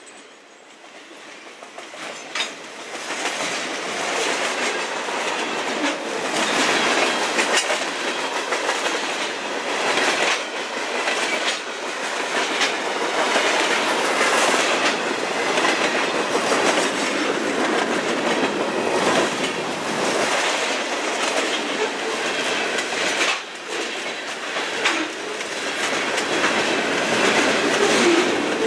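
Freight train cars (boxcars, tank cars and covered hoppers) rolling past close by: a steady rumble and rattle with wheels clicking over rail joints. The noise builds over the first few seconds and then holds loud.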